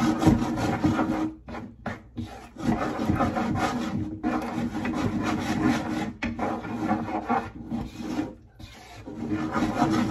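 Spatula scraping and stirring around a nonstick frying pan of thick mushroom cream sauce, working butter in to finish it, in long strokes broken by a few short pauses.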